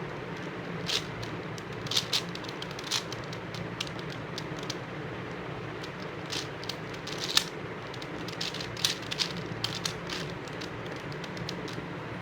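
Plastic 5x5 Rubik's cube being turned by hand: irregular clicks and snaps of the layers, sometimes several in quick succession, over a steady low hum.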